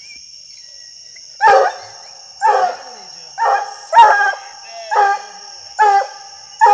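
Black and tan coonhound barking: seven short loud barks about one a second, beginning about a second and a half in.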